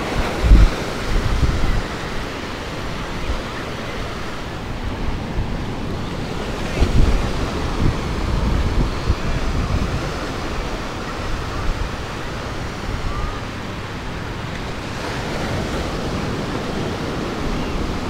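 Ocean surf washing steadily onto the beach, with wind gusting against the microphone in uneven low rumbles.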